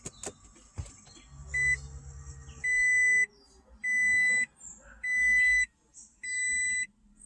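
Electronic warning beeper sounding at one steady high pitch: one short beep, then four longer beeps a little over a second apart. A brief low hum comes before the beeps.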